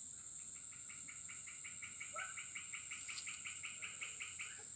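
A fast run of evenly repeated short calls from a swamp animal, about six or seven notes a second in two pitches, over a steady high drone of insects.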